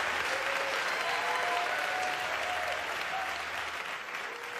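Audience applauding, with a few voices calling out, fading down over the last second or so.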